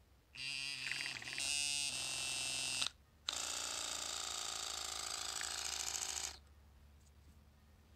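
The pump motor of a disassembled Panasonic Dentacare EW1211 oral irrigator runs in two bursts of a few seconds with a short stop between, buzzing steadily. It is being tested out of its casing after a battery replacement and still works.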